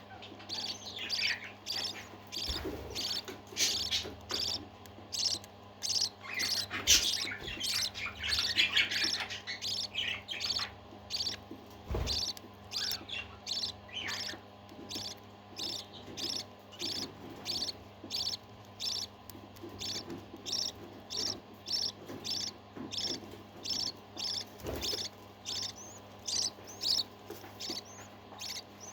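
Parakeets chirping and warbling: a busy flurry of overlapping chirps in the first half, settling into a steady run of short repeated chirps about twice a second. A few brief knocks come through, the clearest near the middle.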